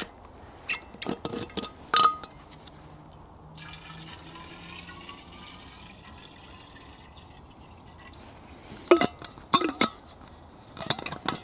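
Water poured from a steel bottle into a stainless steel Kelly Kettle, a steady pouring sound whose pitch slowly rises as the kettle fills. Sharp metal clicks and clinks come before the pour and again just after it.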